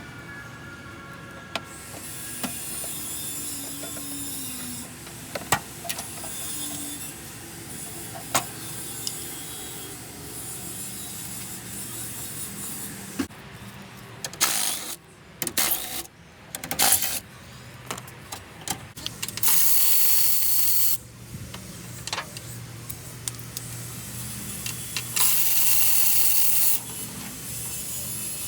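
Scattered clicks and knocks of hands and tools at work, with a cluster of knocks about halfway through. Two bursts of steady hiss, each about a second and a half long, are the loudest sounds, coming in the later part a few seconds apart.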